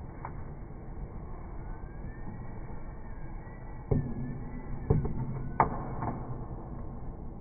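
Three short knocks of thin plywood drawer-rail strips being handled and set down on a plywood workbench, in the second half, over a steady background hum; a faint tone rises and falls in the background.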